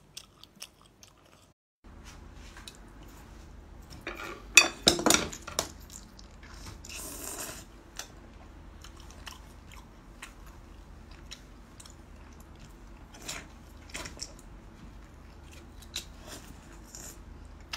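A person eating sauced octopus and squid close to the microphone: wet chewing, biting and sticky mouth clicks. The loudest cluster of bites comes about five seconds in.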